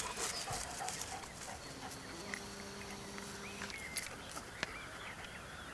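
Faint outdoor field ambience: light rustling of grass near the start, a few short distant bird chirps, and a low steady hum lasting about a second and a half near the middle.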